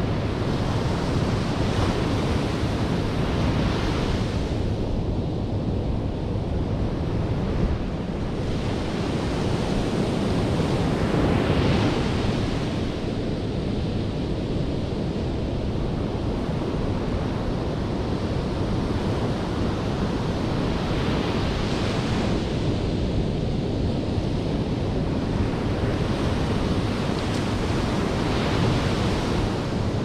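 Atlantic Ocean surf breaking on a sandy beach: a steady wash of waves that surges every several seconds as each wave breaks, with wind rumbling on the microphone.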